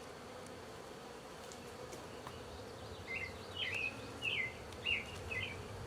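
Honeybees buzzing steadily around an open hive. About three seconds in, a bird gives a series of five short chirps over the buzzing.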